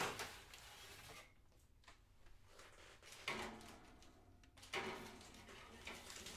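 Kitchen clatter of objects being handled and set down: three sharp knocks, at the start, about three seconds in and about five seconds in, each with a short ring-out, then lighter ticks.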